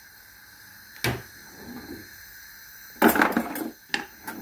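Kitchenware knocking and clinking: one sharp knock about a second in, then a short clatter of clinks and knocks about three seconds in, followed by a few single clicks.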